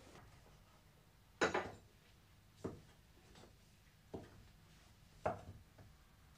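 Kitchen clatter from cooking at a counter: four separate knocks of utensils, board and pans, a little over a second apart, the first and the last the loudest.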